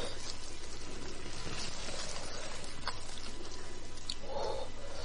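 Wet eating sounds of beef bone marrow being sucked and chewed close to the microphone, with a few faint clicks over a steady hiss.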